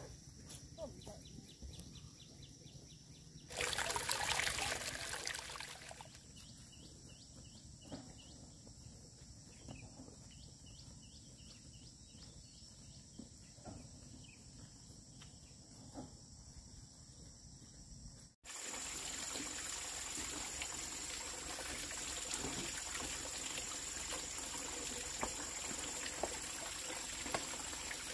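Quiet outdoor background with faint ticks and a thin high steady hum, broken about 3.5 s in by a loud rushing noise lasting about two seconds. From about two-thirds of the way through, water runs steadily into an outdoor sink.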